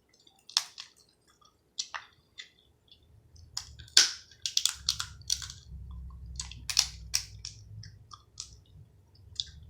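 Crab shells being cracked and snapped apart by hand, many short sharp cracks and clicks, with close-up chewing from about three seconds in.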